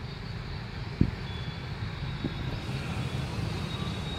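Steady low outdoor rumble, like distant road traffic mixed with wind on the microphone, with one sharp thump about a second in.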